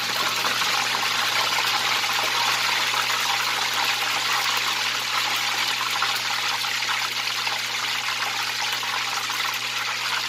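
Pork knuckles deep-frying in a pan of hot oil: a steady, loud sizzle of bubbling oil, with small pops here and there.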